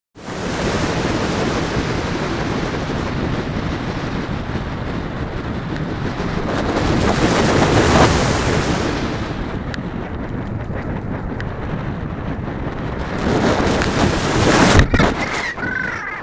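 Wind rushing over the microphone of a camera worn by a falcon in flight. It swells about halfway through and again toward the end, with a sharp loud buffet. A few short bird calls come in near the end.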